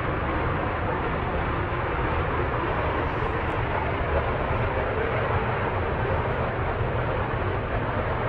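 Power plant running: a loud, steady, even rushing rumble with no breaks.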